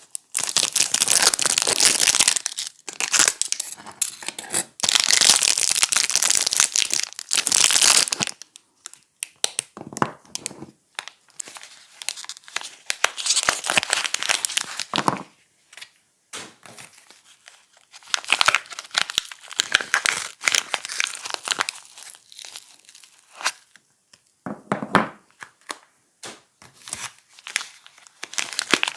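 Soap wrapping being torn and crinkled by hand as bars of soap are unpacked. There are two long rips in the first eight seconds, then shorter, scattered bursts of crinkling.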